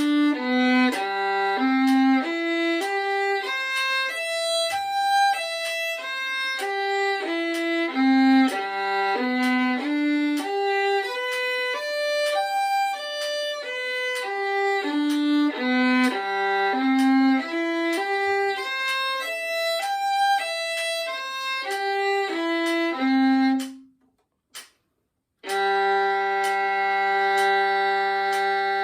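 Solo violin playing G major arpeggios, the notes stepping up and down about two a second. About 24 seconds in the playing stops for a moment, then a sustained bowed double stop begins near the end.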